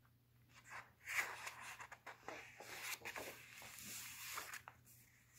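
Pages of a picture book being turned and handled: a faint, uneven papery rustle with a few soft taps.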